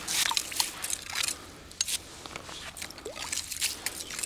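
Metal ice skimmer scraping and scooping slush and ice chips out of a freshly drilled ice-fishing hole. The scraping is densest in the first second or so, then turns to softer scrapes and small clicks.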